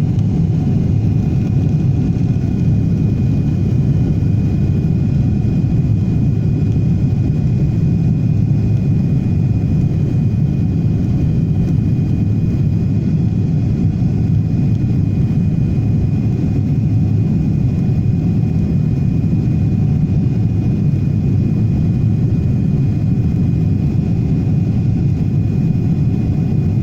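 Boeing 777-300ER's GE90 jet engines at high thrust during takeoff, a steady heavy low rumble with a faint, even high whine above it.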